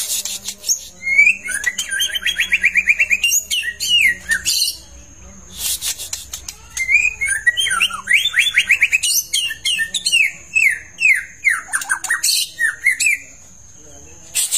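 White-rumped shama (long-tailed murai batu) singing in full voice in two phrases of rapid trills and falling whistled notes: a short phrase of about three seconds, then after a brief pause a longer one of about six seconds.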